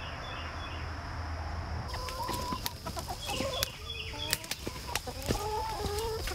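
Domestic hens clucking in many short calls, starting about two seconds in, with scattered sharp clicks and knocks among them.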